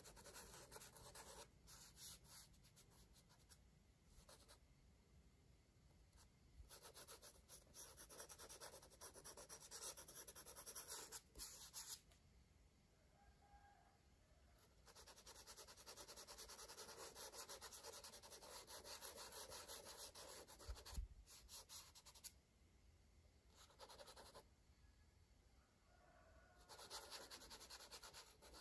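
Crayon scratching on paper: quick back-and-forth colouring strokes, faint, in stretches of a few seconds with short pauses between. A soft low knock comes about two-thirds of the way in.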